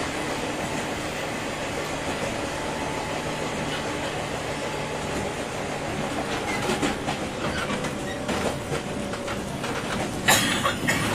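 Interior running sound of a JR 201 series electric train's motor car: steady rumble of the train under way, with a faint low hum that fades out about halfway through. Wheels then knock over rail joints in a string of sharp clacks, the loudest a single crack near the end.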